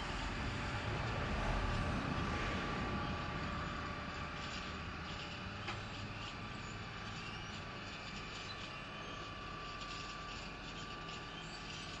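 Wood-Mizer LT40 Super Wide sawmill running while its saw head is lowered from the top of the mast: a steady engine hum with a thin constant whine, loudest in the first couple of seconds and easing slightly as the head comes down.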